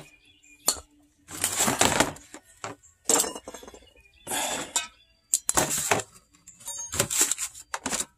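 Metal tools and brake hardware clinking and clattering in several short separate bursts.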